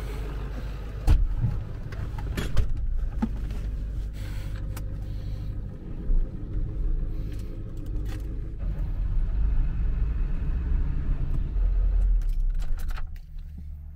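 A Ford pickup truck's engine runs with a low, steady rumble heard from inside the cab, and keys jangle. A couple of sharp knocks come in the first few seconds as the driver's door shuts. Near the end the engine is switched off with the key and the rumble falls away.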